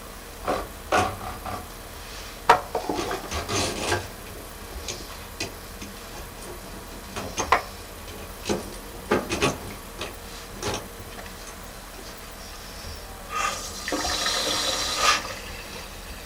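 Water in a drain pipe splashing and trickling in irregular short bursts with a few knocks, then a longer rush of running water about two seconds before the end.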